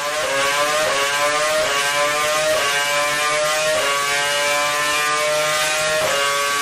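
Mercedes-Benz Formula 1 engine running at high revs. Its high-pitched note climbs steadily and drops back sharply a few times, as the revs rise and fall.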